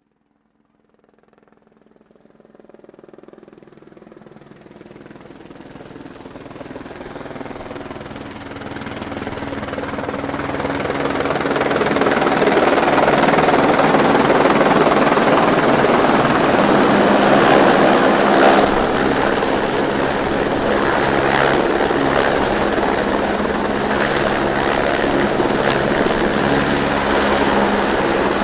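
Helicopter growing steadily louder from silence over about ten seconds, then running loud and even.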